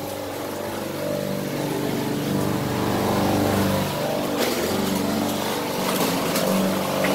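An engine running steadily, its low hum wavering slightly in pitch.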